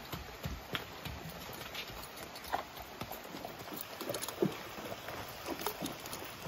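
Horse hooves clopping, then splashing through a shallow creek, over the steady rush of running water.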